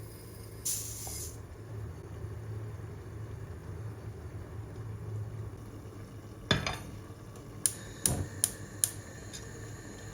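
Kitchen work sounds: a short hiss about a second in, then a clatter and four sharp clinks of dishes and utensils near the end, over a steady low hum.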